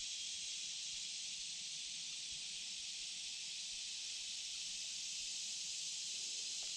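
Steady high-pitched hiss of outdoor creekside ambience, even throughout with no distinct events.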